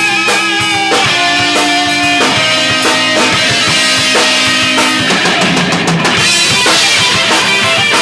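Rock band playing an instrumental passage: guitars hold long notes that step down in pitch about once a second over a steady drum kit beat with bass drum.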